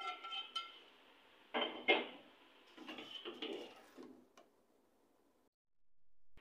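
A metal ladle scraping and knocking against an aluminium pressure-cooker pot while stirring thick cooked rice and lentils, in a few short strokes during the first four seconds.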